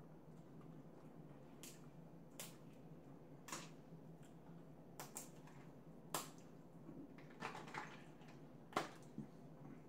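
Crab leg shells cracking and snapping as they are broken open by hand: about a dozen sharp, irregular cracks, the loudest near the end, over a faint low hum.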